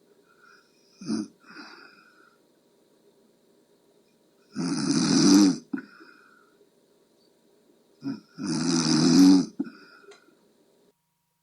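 A sleeping person snoring: a short, fainter snore about a second in, then two loud snores, each lasting about a second, roughly three and a half seconds apart.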